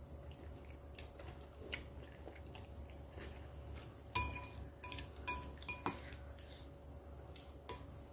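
A metal spoon and chopsticks clinking against a noodle bowl: a few soft clicks, then about five sharp ringing clinks in quick succession around the middle, the first the loudest, and one more near the end.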